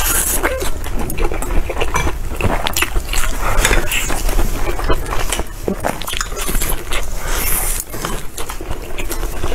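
Close-up eating sounds: biting and chewing corn on the cob and meat, with many small clicks and clinks of chopsticks against ceramic bowls and plates.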